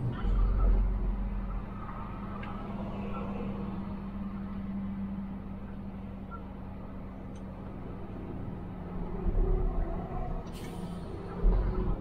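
Inside a semi-trailer truck's cab: the diesel engine and road noise make a steady low hum, with heavier rumbles about half a second in and again around nine seconds. About ten and a half seconds in there is a short hiss.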